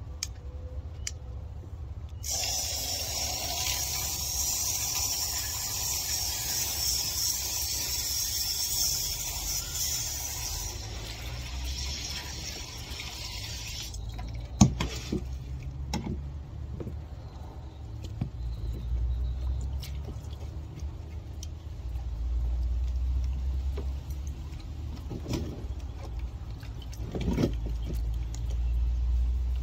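Garden hose spraying water into a plastic container to rinse turtle-tank rocks, a steady hiss that starts about two seconds in and stops about halfway through. Afterwards there is a low rumble and a few sharp knocks.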